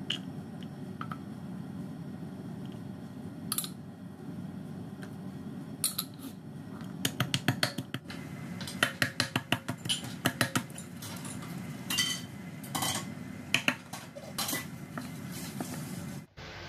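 Pestle pounding garlic cloves in a mortar: a few single knocks, then quick runs of sharp knocks, several a second, from about seven seconds in, over a steady low hum.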